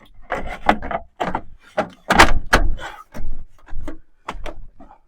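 A quick, irregular run of wooden knocks and clunks, about a dozen over five seconds, as pieces of wood trim are handled and knocked against the wooden ceiling boards.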